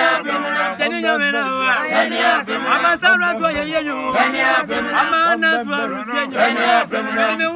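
Small mixed group of men and women singing a Twi gospel chorus together, unbroken throughout.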